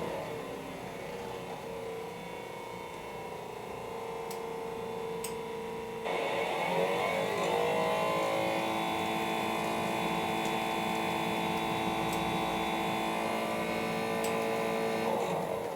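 Small electric coffee roaster's motor running with a steady hum; about six seconds in it speeds up and grows louder, its pitch rising, then holds steady.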